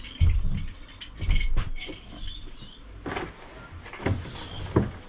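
Handling noises inside a Volkswagen Transporter van as its ignition is switched on to test the refitted ceiling light: a few dull thumps in the first two seconds, then three sharper clicks and knocks, with a light jingle like keys.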